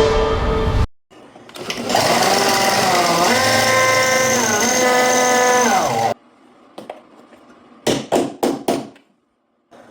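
Power drill drilling out old pop rivets: the motor whines steadily, its pitch dipping twice as the bit bites, then winds down. About 8 seconds in come four short bursts of the drill.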